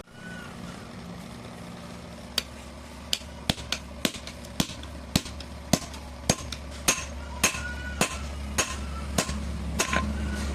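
Hand hammer striking metal on an anvil, blows uneven at first and then steady at about two a second, some with a short metallic ring, over a low steady hum.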